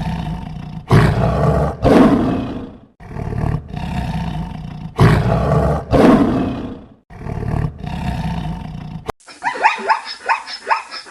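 A big cat roaring and growling in rough, low bursts: two loud roars about a second apart, repeated about four seconds later. About nine seconds in it cuts off suddenly to a quick run of high yipping calls.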